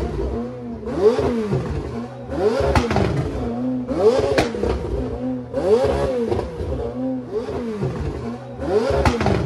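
A high-performance engine being revved again and again in short blips, about one every second and a half, its pitch rising and falling with each rev.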